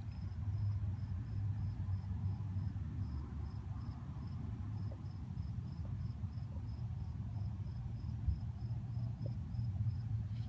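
A cricket chirping in short, evenly spaced high chirps, over a louder, steady low rumble.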